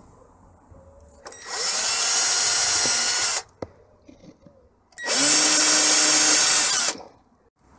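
Ryobi cordless drill drilling out the plastic screw covers on a power bank's plastic case, in two runs of about two seconds each, the second slightly louder.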